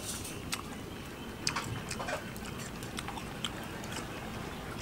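A person eating goat curry: chewing and mouth clicks, with scattered short sharp clicks every half second or so.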